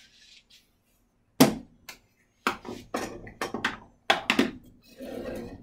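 Knocks and clatters of wood and hand tools being handled on a bandsaw's table: one sharp knock about a second and a half in, then a quick run of several more, ending in a brief rustle.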